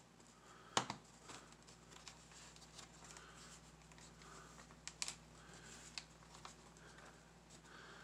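Plastic bottom case of a Gateway laptop being pried at the edge by hand: one sharp plastic click about a second in, then faint scraping and a few small clicks around five and six seconds in. The panel resists, as if, the owner suspects, another hidden screw still holds it.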